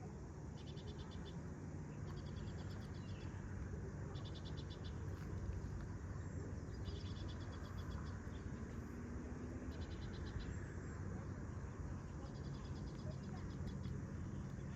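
An insect calls in short, high, pulsed trills, each under a second long, repeating every second or two over a steady low hum and background noise.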